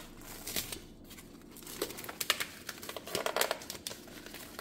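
Plastic cling film crinkling and tearing as it is pulled off a foam meat tray holding a steak, in scattered crackles.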